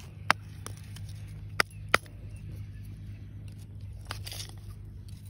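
Lumps of charcoal being handled and set onto a small pile of wood kindling: a few sharp clinks in the first two seconds and a short crunching scrape about four seconds in, over a low steady hum.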